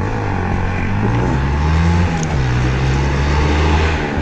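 A motor engine running loudly. It starts abruptly, and its pitch rises and falls as it revs.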